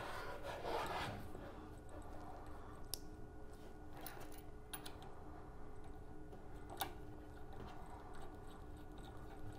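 A metal directional coupler and its coaxial test cables being handled and reconnected: a rustling scrape in the first second, then a few sharp separate clicks and taps, over a faint steady hum.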